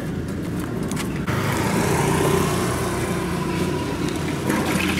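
Steady low background rumble and hiss, turning louder and fuller about a second in.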